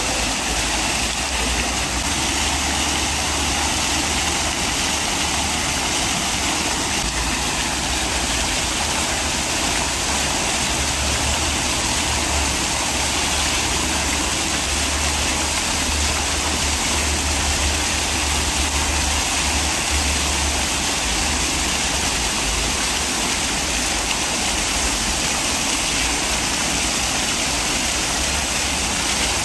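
Fountain jets splashing steadily into a stone basin: a constant rush of falling water, with a low rumble underneath.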